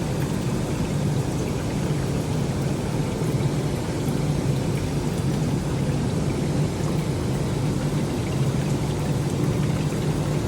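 Steady rain falling hard, with a constant rush of water pouring and splashing.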